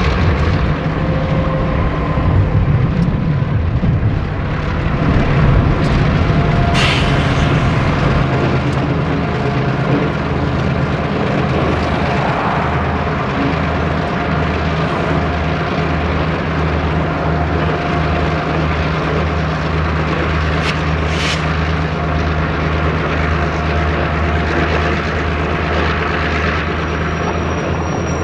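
Diesel-electric locomotives of a freight train passing at low throttle on a downgrade: a steady low engine drone with a throbbing pulse. There are two sharp clicks, about 7 and 21 seconds in.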